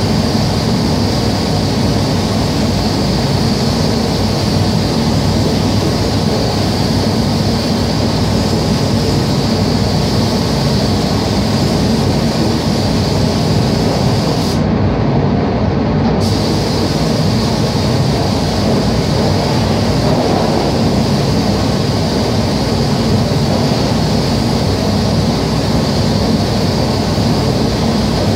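Spray paint booth's ventilation fans running: a loud, steady rush of air.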